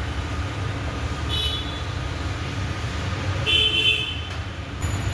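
Steady low traffic rumble with two short vehicle horn toots, one about a second and a half in and a louder one a little before four seconds.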